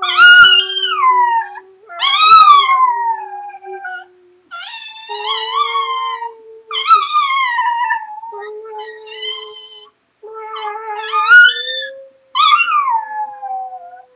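Chihuahua howling like a wolf: a string of about seven high howls, each a second or so long and falling in pitch. A man howls along with it on a steadier, lower note.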